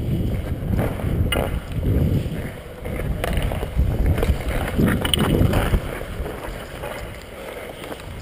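Wind rushing over an action camera's microphone as the wearer skates, swelling and fading with each push, with ice skates scraping and a few sharp clicks of sticks or puck.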